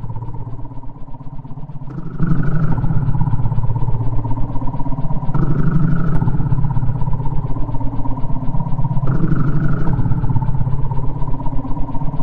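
Electronic drone music: a buzzing, rapidly pulsing low synth tone that steps up in loudness about two seconds in, with its upper layers shifting every few seconds.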